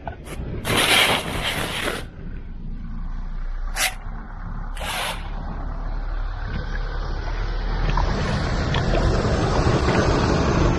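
A plastic feed sack rustles briefly, then a hiss of splashing from the pond surface grows steadily louder as grass carp take feed, over a steady low rumble.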